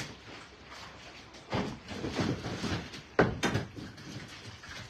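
A live common carp thrashing while being handled in a black plastic tub, its body slapping and knocking against the tub, with two sharp knocks about three seconds in as it is lifted out.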